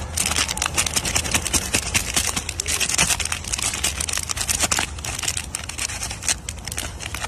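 Plastic candy wrapper crinkling as a rhesus macaque handles it: a dense, continuous run of crackles, over a steady low hum.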